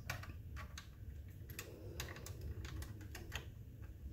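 Small irregular clicks and ticks of steel rifle parts being handled: the lower tang, trigger and hammer assembly of a Winchester 1886 lever-action being worked with the fingers while string is wound around its spring.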